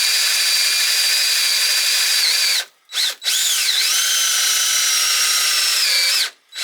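Drill driver running as a bit drills through a workpiece, with a steady high motor whine. It cuts off about two and a half seconds in; after a short blip it starts again with a rising whine, runs about three more seconds, and stops near the end.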